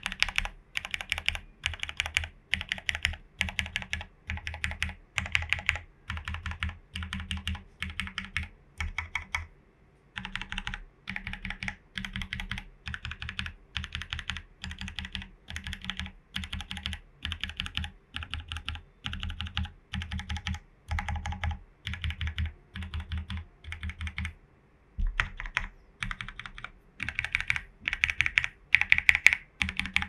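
Typing on a JerPlanet J1800 mechanical keyboard with lubed and filmed Cherry Hyperglide Black linear switches, PBT keycaps and a foam-filled case: a steady stream of keystrokes. It pauses briefly twice, and a louder run of strokes comes near the end.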